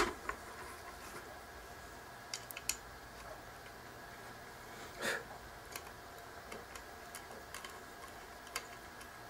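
Faint scattered clicks and small taps of a screw being fitted into the side of a hard drive's metal mounting plate, with a knock at the start and a soft thump about five seconds in.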